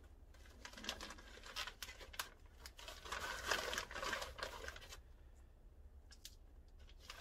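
Plastic vacuum-sealer bag crinkling and rustling as pork loins are pushed into it. The crackling is loudest about three to four seconds in and dies down after about five seconds.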